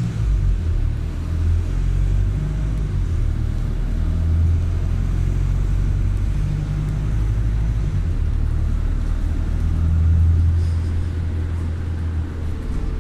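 Low, steady rumble of a road vehicle on the move: engine and road noise.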